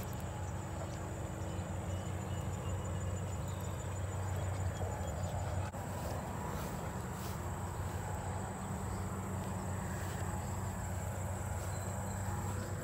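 Insects in summer grasses giving a steady, high, unbroken buzz, over a low steady rumble.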